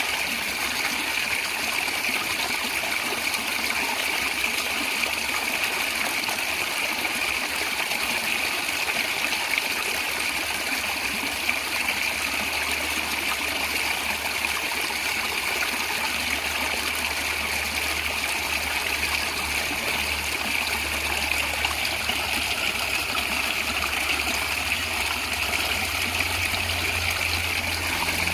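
Natural stream of water gurgling and trickling steadily.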